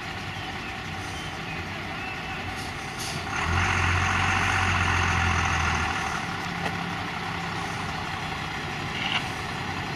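Diesel fire engines idling, with the engine sound growing louder and a hiss rising over it for about two and a half seconds, starting a little over three seconds in, before it settles back.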